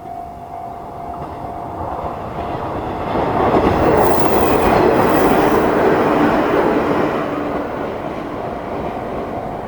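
Shinano Railway 115 series electric train passing over a level crossing, its wheels clattering on the rails. It grows louder to a peak about four to six seconds in, then eases off. Underneath, the crossing's electronic warning bell rings steadily with a JR East–style tone.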